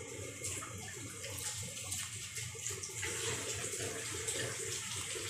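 Water running and splashing steadily, as from a tap, while cabbage leaves are handled in a metal colander.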